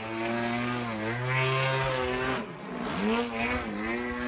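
Radio-controlled aerobatic airplane's gasoline engine and propeller running in flight overhead, the pitch wavering up and down with the throttle; about halfway through the note drops sharply and climbs back up.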